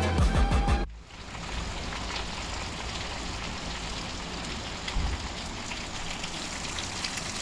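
Music ends about a second in, then steady rain falling on a garden lawn: an even hiss with scattered drop ticks, the downpour the speaker later says absolutely threw it down.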